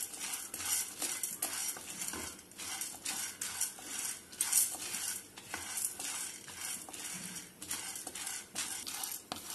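A spatula stirring dry chana dal in an empty pan, the split lentils rattling and scraping across the pan's surface in quick repeated strokes, a few a second, as they dry-roast without oil.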